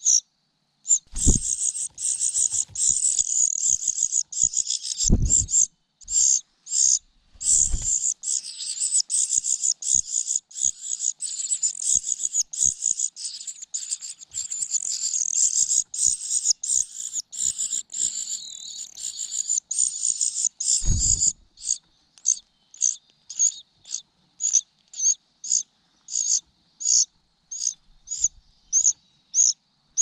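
Nestling birds begging, a cuckoo chick among them: high-pitched peeping, dense and continuous for most of the time, then thinning to single calls about twice a second. A few dull low thumps, about a second in, around five and eight seconds in, and once more near twenty-one seconds.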